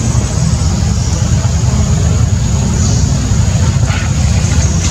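A loud, steady low rumbling noise, rough and without any clear pitch.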